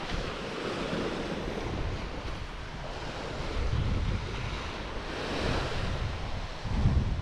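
Small waves breaking and washing up the sand at the water's edge, the hiss of the surf swelling and falling twice. Wind buffets the microphone in low gusts, strongest near the end.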